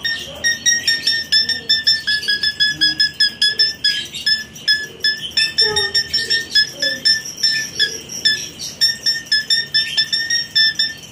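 A cricket chirping steadily, short pure-toned chirps at about four a second.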